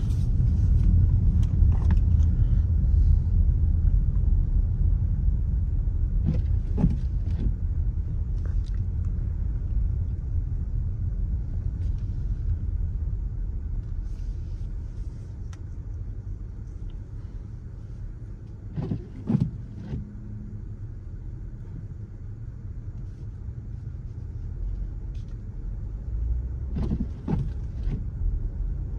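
Cabin noise of a 2018 Dodge Durango driving on snowy roads: a steady low engine-and-road rumble that eases off past the middle and builds again near the end, with a few brief knocks.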